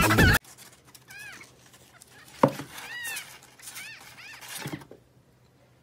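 Electronic dance music cuts off about half a second in. Then a kitten mews several times, short high calls that rise and fall in pitch, with one sharp thump about two and a half seconds in.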